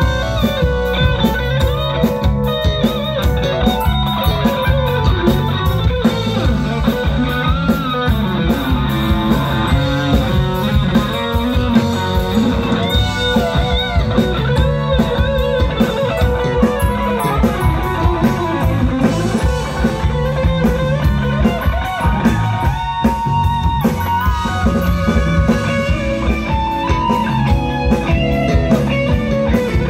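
Live rock band playing: electric guitars, bass and a drum kit at a steady loud level, with busy drumming and a guitar line on top.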